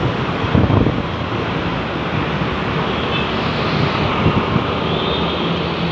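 Roadside traffic noise: a large vehicle's engine running steadily as it passes close by.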